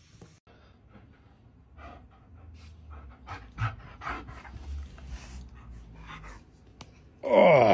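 A husky-type dog panting, about two to three breaths a second, then near the end it gives one short, loud call that slides down in pitch.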